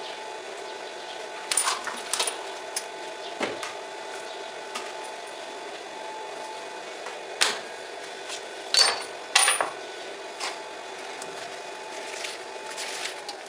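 A steady mechanical drone that fades out right at the end, with several sharp metallic clinks of hand tools against a steel plate.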